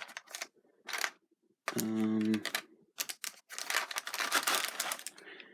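Clicking and rustling of plastic packaging being handled, with a dense run of clicks and crinkles in the second half. A short low hum, like a closed-mouth "hmm", comes about two seconds in.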